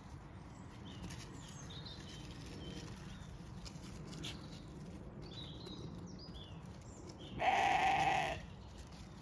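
A Zwartbles sheep bleats once, loudly, for about a second near the end, on one steady pitch.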